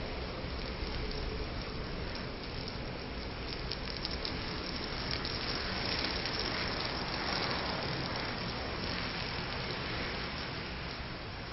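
A large mass of matchsticks burning in one blaze: a steady rush of flame with fine crackling and fizzing from igniting match heads, the crackle thickest in the middle and the rush swelling a little after that.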